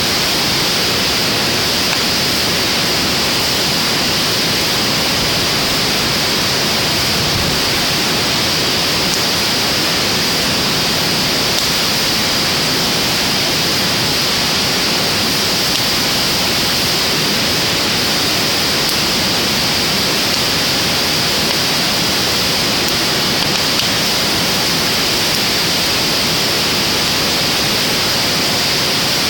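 Driftwood fire burning in a steel fire pit: a steady rushing hiss, with only a few faint pops.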